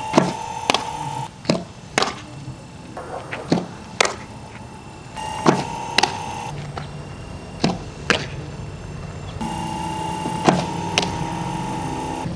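Sharp cracks of a softball striking bat or glove, mostly in pairs about half a second apart and repeating every couple of seconds.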